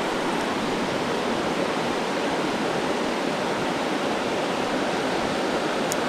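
Mountain trout creek rushing over rocks, a steady even rush of water.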